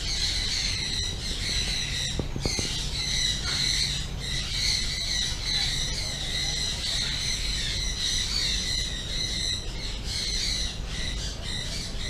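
A dense chorus of high-pitched squawks and chirps from animal calls, repeated rapidly with no pause.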